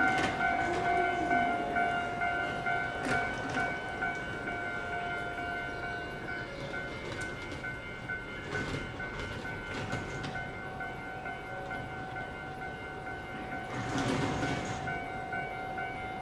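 115-series electric train standing at the platform, its onboard equipment giving a steady whine of several pitches, with a brief hiss about fourteen seconds in.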